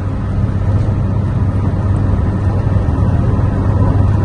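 Scania truck cruising at highway speed, heard from inside the cab: a steady low engine drone mixed with road noise, growing slightly louder.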